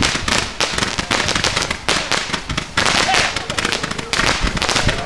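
Fireworks going off in rapid succession: a dense, continuous crackle of small bangs, with louder reports every second or so.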